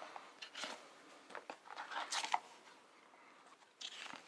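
Faint handling of cardboard packaging: a few soft scuffs, scrapes and clicks as a card insert is lifted out of its box, mostly in the first two and a half seconds, with another small rustle near the end.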